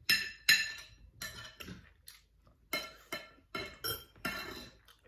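Metal forks clinking against ceramic plates and bowls: about a dozen sharp, ringing clinks, the two loudest at the start.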